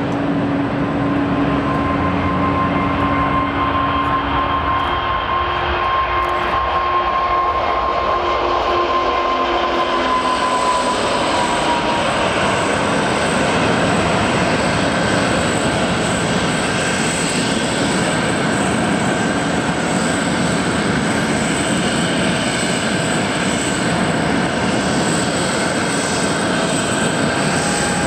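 Steady jet-engine roar with a faint whine that sinks slightly in pitch about ten seconds in.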